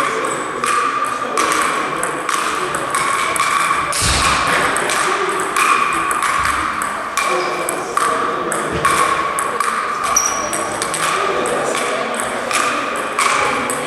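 Table tennis rally: the plastic ball clicks off sandpaper-covered bats and bounces on the table with a short ringing ping, back and forth about once every half second to a second.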